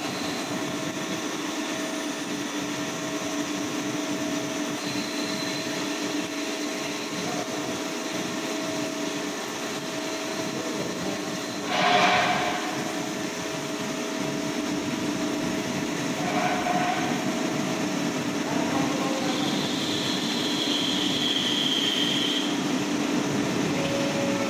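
A CNC vertical machining center (VMC) cutting a steel shaft held on its fourth-axis rotary table under flood coolant: a steady machine noise with several held tones and the spray of coolant. There is a brief louder surge about halfway through, and a high steady tone for a couple of seconds near the end.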